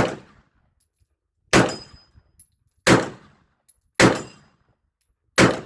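Five pistol shots fired one at a time, a little over a second apart, each with a short echoing tail.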